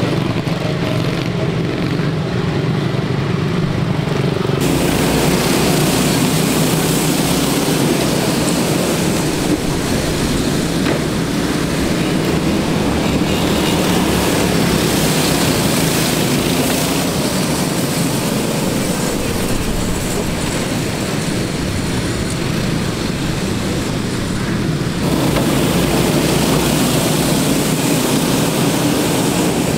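Several quarter midget race cars' small engines running hard as the cars lap a dirt oval, a steady dense buzz of overlapping engines. The sound changes abruptly twice, about four and a half seconds in and again about five seconds before the end.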